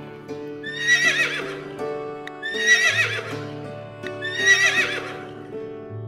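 A horse whinnying three times, each call about a second long with a quavering pitch, over background music.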